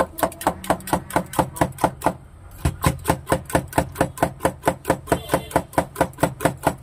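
Spring coil whisk beating eggs in a stainless steel tumbler: a fast, even clatter of metal striking the cup, about five strokes a second, with a short break about two seconds in.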